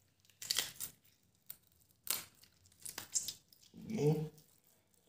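Raw chicken wing meat and skin being torn and pulled back along the bone by hand, in several short tearing bursts.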